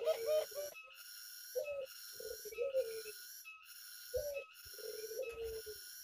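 Ringneck doves cooing: a short note followed by a longer, slightly falling rolling coo, repeated about three times.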